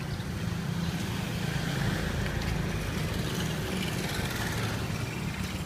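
Steady low rumble of nearby motor traffic, swelling slightly about two seconds in.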